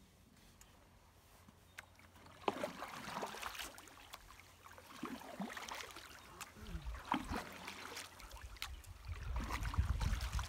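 Canoe paddle strokes in calm lake water: the blade dipping, pulling and lifting with splashes and drips, beginning a couple of seconds in and repeating irregularly, with a few light knocks. A low rumble builds near the end.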